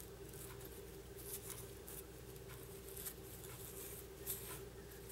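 Small fly-tying scissors snipping spun deer hair on a fly's head: several faint, irregularly spaced snips, trimming the head to a round shape, over a steady low hum.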